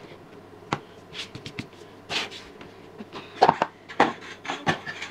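Kitchen utensils and containers handled on a counter: a scattered run of light knocks and clicks, the loudest a little after halfway.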